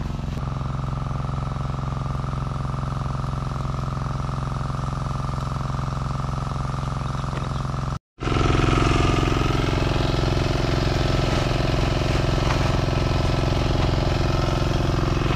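An engine running steadily at a constant speed. The sound drops out for a moment about eight seconds in, then carries on a little louder.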